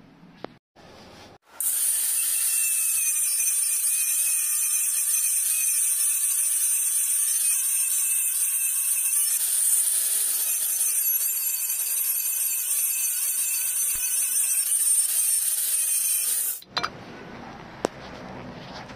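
Angle grinder with a cut-off disc running and cutting through the metal rear bracket of an electric scooter's deck, a loud, steady, high-pitched whine. It starts about a second and a half in and cuts off suddenly near the end.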